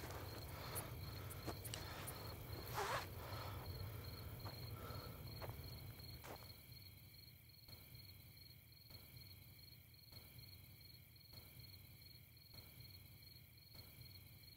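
Crickets chirping in a steady, evenly pulsing trill over a low rumble, with a few faint knocks in the first few seconds; the whole night ambience fades down slowly.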